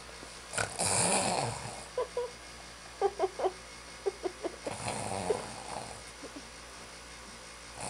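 A person's loud, exaggerated fake snores: two long rasping snores about four seconds apart, with short vocal sounds in between.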